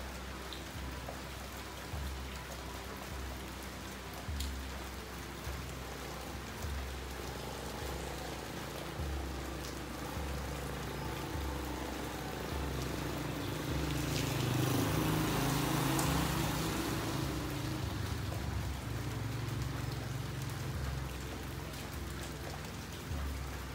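Steady rain falling on a street, with a vehicle passing that swells louder about two-thirds of the way through.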